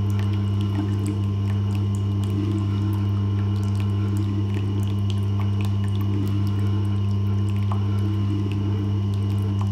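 Tormek T-8 sharpening machine running with a steady low hum while the flute of a spindle roughing gouge is honed on its profiled leather honing wheel, with faint light ticks of the steel rubbing on the leather as the burr is worked off.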